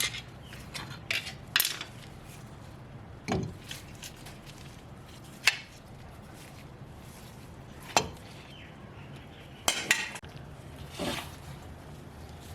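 Metal clinks and taps from tools and rear drum brake parts being handled while the handbrake cable is unhooked: about eight separate sharp clicks at uneven intervals over a low steady background.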